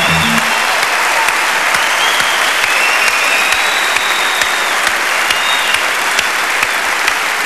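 Studio audience applauding steadily, a dense mass of many hands clapping. The closing notes of the show's theme music cut off just after it starts.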